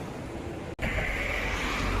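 Steady rushing noise of flowing floodwater. It cuts out sharply for an instant about three-quarters of a second in, then returns louder and rougher with a low rumble.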